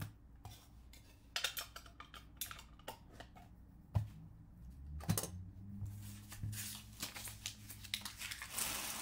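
Hands handling trading cards and clear plastic card cases: scattered clicks and rustling, with two sharp taps of a hard plastic case about four and five seconds in, and a longer rustle of sleeves near the end.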